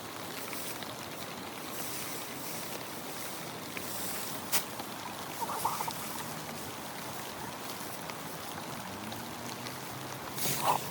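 Steady rain falling, an even hiss, with a single sharp click about four and a half seconds in.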